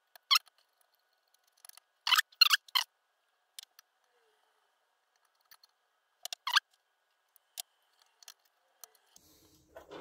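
Small screws squeaking as they are turned into the base plate of a 16mm-scale live steam Garratt model with a small screwdriver: short, high squeaks in little groups with pauses between.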